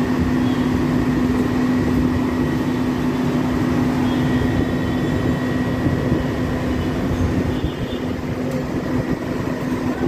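Steady mechanical hum, a constant low tone over loud, even background noise, with no break or change.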